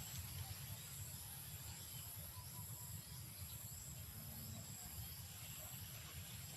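Faint, steady high-pitched trilling of insects, two constant tones throughout, over a low rumble.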